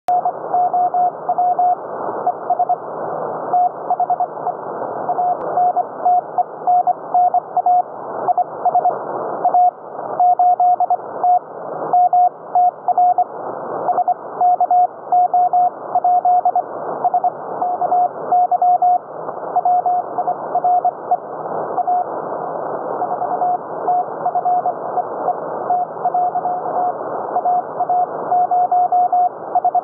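Morse code (CW) on the 40-metre ham band, heard through an Elecraft K3 transceiver's receive audio. A single steady tone is keyed on and off in dots and dashes over constant band hiss.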